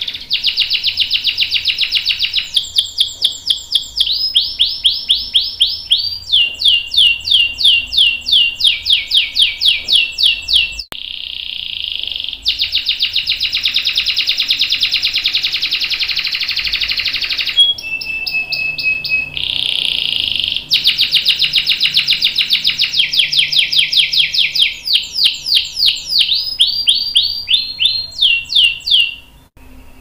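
Domestic canary in full song, long and continuous. Dense, fast buzzing rolls alternate with runs of rapid sweeping whistled notes, several a second, and the phrase changes every second or two. There are brief breaks about eleven seconds in and near the end.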